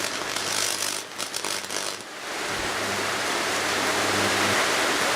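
Microwave oven transformer humming under load while mains current arcs through a screwdriver shorted to earth, giving a loud steady sizzling hiss with crackles. The hum drops away near the end while the sizzle goes on.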